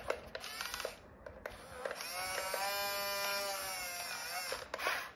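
Yigong toy RC excavator's small electric motors whining steadily for about two and a half seconds as the arm swings and lifts, the pitch rising slightly and settling back. Light clicks and rattles come before it, and a short scraping burst comes near the end.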